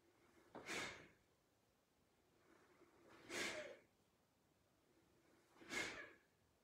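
A person exhaling forcefully through the mouth three times, about every two and a half seconds, with quieter in-breaths between. Each out-breath goes with a qigong push of the hand forward.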